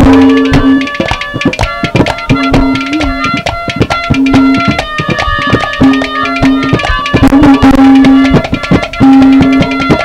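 Live Haryanvi folk-music interlude with no singing: hand drums play dense, fast strokes under a melody instrument that plays held notes in short phrases.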